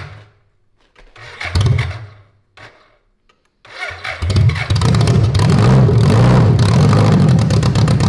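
1985 BMW K100 1000cc inline-four engine being started on brake cleaner sprayed in as starting fluid, after fifteen years in storage. The starter cranks in a short burst about a second in, then about three and a half seconds in the engine catches and runs loudly and steadily for several seconds.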